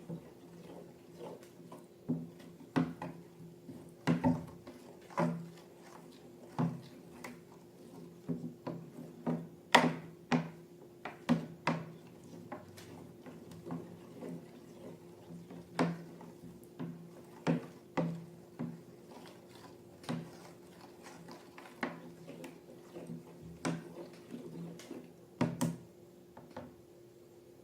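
Slime being squeezed and worked by hand, making irregular sticky clicks and pops, one or two a second, over a faint steady hum.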